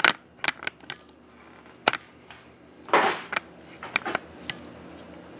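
Scattered sharp clicks and knocks, several close together in the first second and a few more around four seconds in, with a brief rustle about three seconds in, over a faint steady hum.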